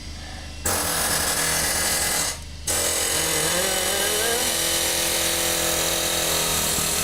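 Cordless drill-type power tool running in two stretches, a short one and then, after a brief stop, a longer one whose whine rises in pitch, as it spins out a bolt on the intake manifold.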